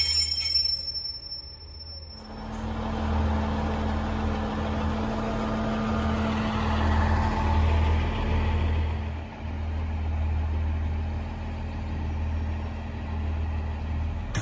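Pacer railbus's underfloor diesel engine running steadily, a deep hum with a steady drone above it, coming in about two seconds in after a brief high-pitched squeal at the start.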